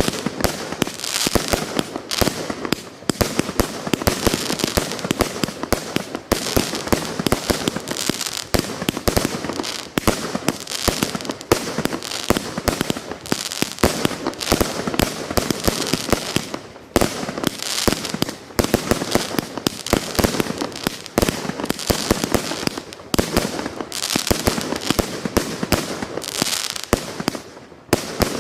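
Fireworks salute: a dense, continuous barrage of bangs and crackles, easing briefly every few seconds.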